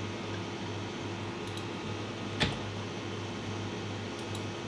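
Steady low hum of room noise, like a computer fan, with one sharp click about two and a half seconds in.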